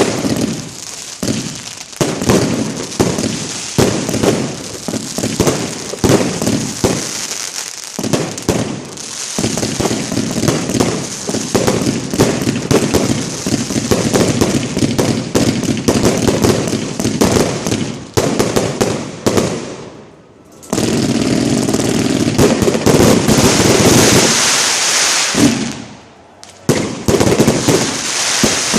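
Professional fireworks display heard from close to the firing site: a rapid, dense run of shell launches and bursts. About two-thirds through they merge into a steady, continuous rush of sound for around five seconds, then break off briefly before the shots resume.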